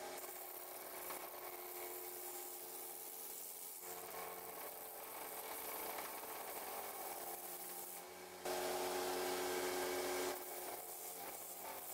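Small belt sander running, its abrasive belt grinding the edge of a steel meat cleaver held against the contact wheel to sharpen it: a steady motor hum under a scraping hiss of metal on the belt. It grows louder for about two seconds near the end.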